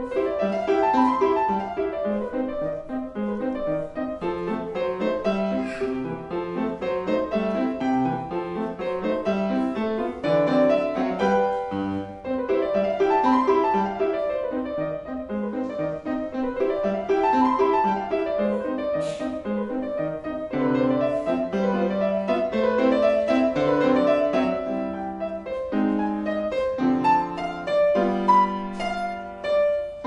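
Solo grand piano playing a lively piece, with quick runs rising and falling in the upper notes, repeated several times.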